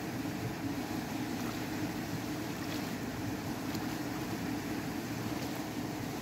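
Steady rush of running water, even in level throughout, with a few faint clicks.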